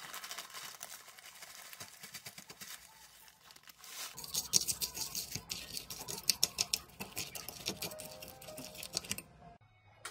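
Granola poured from a plastic bag into a glass bowl of yogurt, a dense crackle of small clicks with the bag crinkling. About four seconds in a metal spoon starts stirring the granola into the yogurt, quick wet clicking strokes, until it stops shortly before the end.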